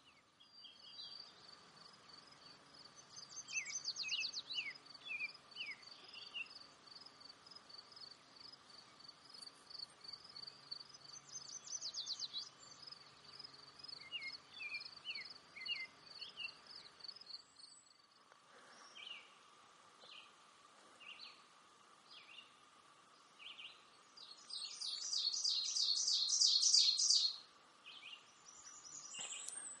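Wood warblers singing: short, high song phrases over a steady, evenly pulsed high insect trill for the first half. Near the end comes one loud, buzzy, fast-pulsed song.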